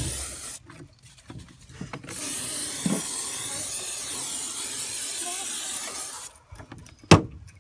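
Aerosol can of bug killer spraying: a short hiss at the start, then one long hiss of about four seconds. A single sharp knock near the end.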